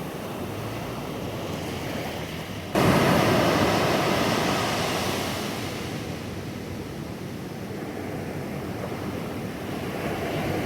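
Pacific ocean surf washing onto a beach, with some wind on the microphone. About three seconds in the sound abruptly grows louder as a wave surges in, then slowly fades over the next few seconds.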